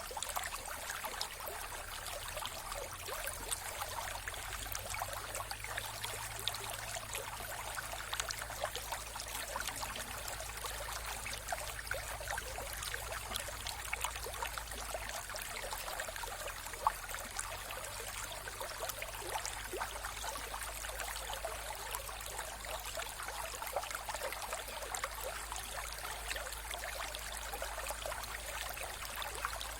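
Mountain river flowing steadily: an even rush of water with constant small splashes and trickles, over a faint low rumble.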